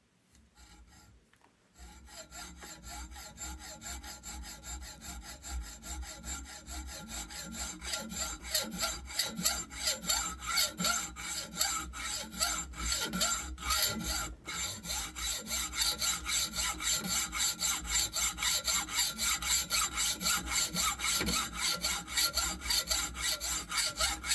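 Hacksaw cutting a hollow metal towel bar tube with rapid back-and-forth strokes. The sawing starts about two seconds in and grows louder as the blade bites into the groove.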